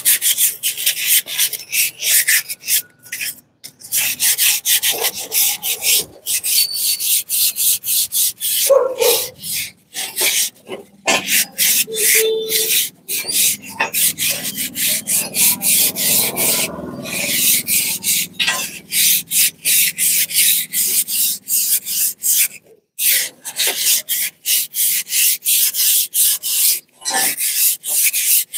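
Rusty steel suspension coil spring being scrubbed by hand in quick back-and-forth strokes, several a second, with a few short pauses: the old paint and rust are being stripped off before repainting.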